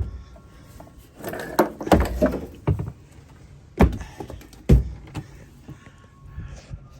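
Water tank being pulled out of a camper van's sink cabinet: rubbing and scraping, with a few knocks as it bumps against the cabinet, two sharp ones near the middle.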